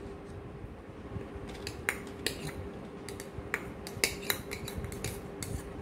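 Spoon clinking and scraping against a bowl as namkeen and chopped tomato are stirred together: a scatter of light, irregular clicks.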